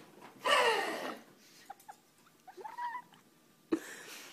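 Pug whining: a loud falling cry about half a second in, then a short rising whine near three seconds in, with a sharp click shortly after.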